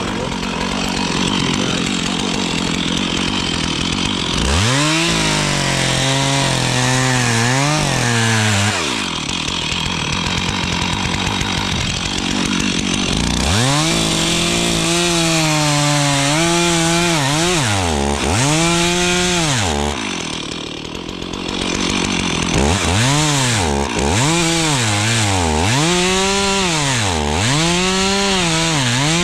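Stihl chainsaw cutting dead spruce. It runs at a steady high speed at first; then from about five seconds in its engine note repeatedly dips and climbs back, roughly once a second, with a brief drop in loudness about two-thirds of the way through.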